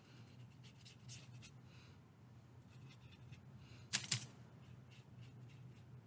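Faint scratchy strokes of a watercolor brush across a paper card, with a brief sharp tap about four seconds in.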